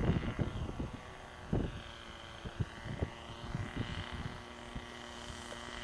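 Distant two-stroke ASP .25 glow engine of a radio-controlled Mustang model plane, a thin high whine that rises and falls in pitch as the plane flies. Wind buffets the microphone in the first second.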